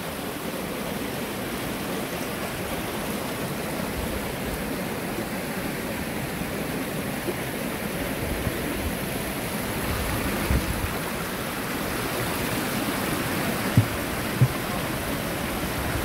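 Stream water rushing steadily over a low stepped stone weir and around stepping stones. Two brief low thumps come about two seconds before the end.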